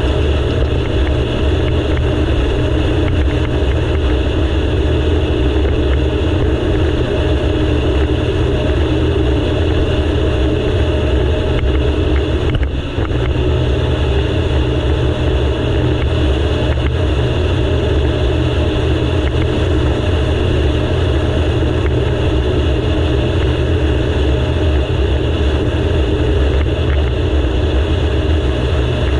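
Yamaha GP1800 jet ski engine running steadily at speed, with a brief dip about thirteen seconds in.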